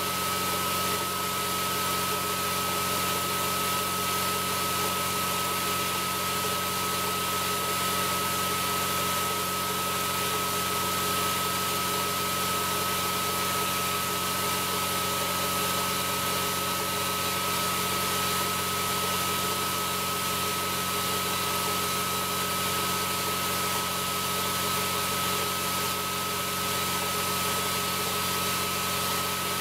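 Quincy piston air compressor running steadily, with a steady high whine over the motor and pump noise, as it builds its tank pressure back up past 150 psi toward its 175 psi cut-out after air was drained.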